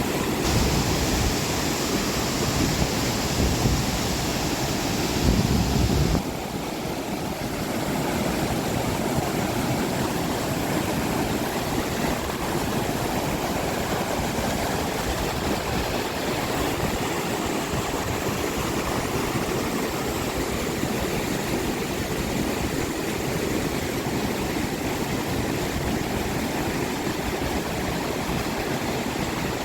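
Steady rush of flowing water from a river or waterfall. For about the first six seconds a louder, hissier noise with more rumble lies over it, then cuts off abruptly, leaving an even rush.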